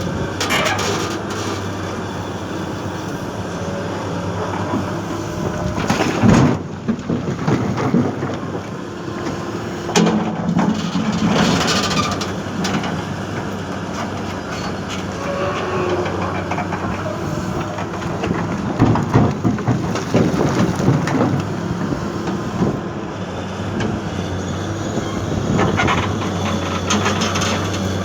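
Komatsu 220 excavator's diesel engine running steadily while it works, with several louder rushes and clunks as soil is dropped into a dump truck's bed.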